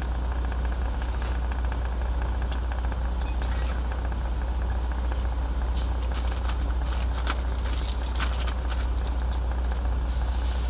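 Idling semi-truck engine, a steady low rumble heard inside the cab. Over it come scattered clicks of chewing and mouth sounds from someone eating meat, mostly a little after the start and again past the middle.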